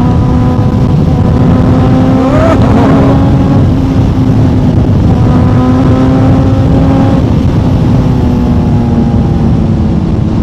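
Kawasaki Z900's inline-four engine through an Akrapovic exhaust, running at a steady cruise with rushing road and wind noise beneath it. A brief rising tone comes about two and a half seconds in.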